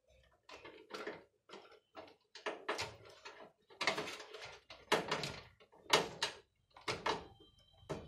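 Irregular clicks, knocks and scrapes of hands handling cables and parts inside a sheet-metal PC case, the loudest about five and six seconds in.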